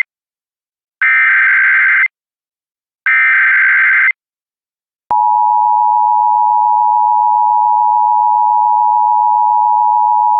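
Emergency Alert System signalling: two roughly one-second bursts of the SAME digital header, a harsh two-pitch data warble, a second apart. About five seconds in, the steady dual-tone EAS attention signal starts abruptly and holds.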